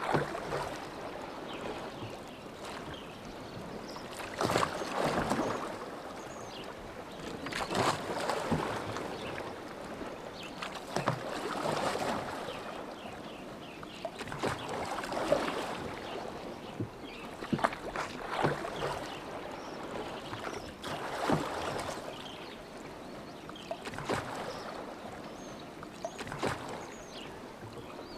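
Oars of a rowboat pulling through lake water: a splashing swell about every three and a half seconds, each stroke often opening with a short knock.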